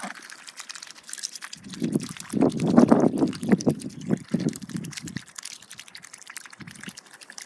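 Two ducks dabbling in a bowl of water mixed with feed: quick wet slurping and bill-chattering, busiest from about two to five seconds in, then lighter sips.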